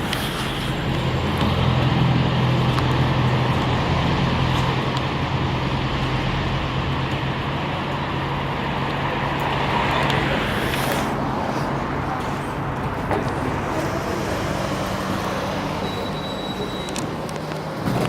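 A motor vehicle running: a steady engine hum over constant road noise, with a brief sharp knock right at the end.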